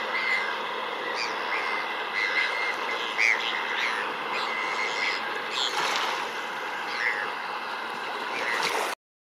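A flock of Bonaparte's gulls giving many short, raspy calls over the steady rush of river waves and splashing. The sound cuts off suddenly near the end.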